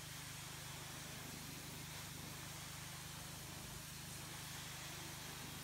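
Pressure washer running steadily and faintly: a low, rapidly pulsing hum with an even hiss over it as the wand sprays the deck boards.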